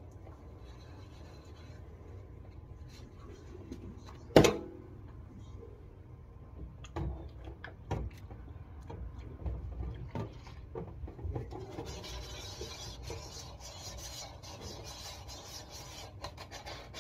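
Handling noises close to the microphone: a sharp knock about four seconds in, a few softer thumps, then a scratchy noise with many small clicks over the last five seconds.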